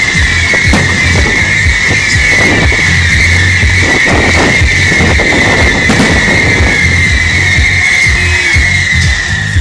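Fireworks display: a long, shrill whistle slowly falls in pitch over a rapid run of pops and crackles from the bursting shells.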